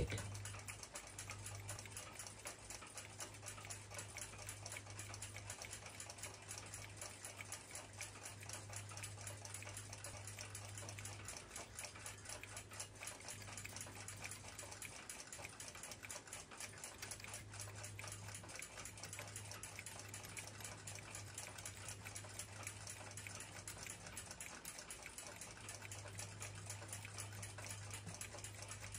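Faint, rapid small clicks and taps of steel tweezers and brass clock wheels and plates being handled while a clock movement is assembled, over a low hum that drops out a few times.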